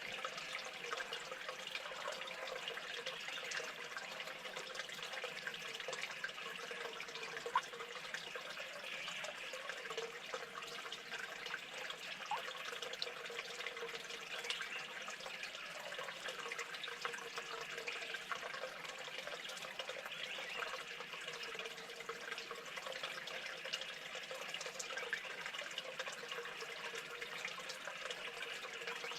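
Steady rushing noise like running water, even throughout, with one faint click about seven and a half seconds in.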